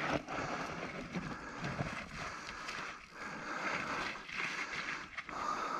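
Mountain bike sliding down a very steep dirt trail, its tyres skidding and scrabbling through the loam in an uneven, rattling run that sounds out of control.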